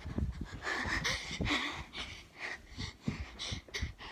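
A person breathing hard in quick noisy puffs, with several dull thumps, as if running and out of breath.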